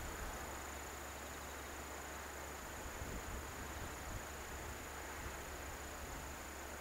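Faint crickets trilling steadily in one unbroken high tone, over a low steady rumble.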